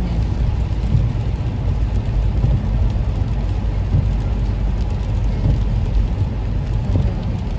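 Steady low rumble of a car driving on a wet road in the rain, heard from inside the cabin: tyre and road noise mixed with rain on the windscreen.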